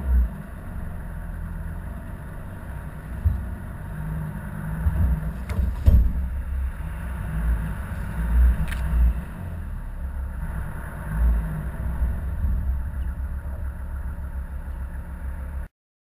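Low, uneven rumble of a slow-moving vehicle, picked up by a camera fixed to its side, with a few sharp clicks midway. It cuts off suddenly near the end.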